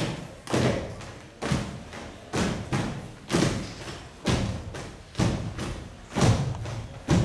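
Many dancers' feet stamping together on a stage floor in a kolo. A heavy thud comes a little under once a second, with lighter steps between and a short hall echo after each.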